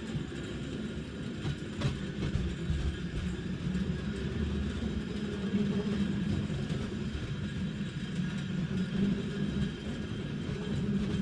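Cable tramcar running along street rails toward the listener, a steady low rumble of wheels on track with a brief click about two seconds in.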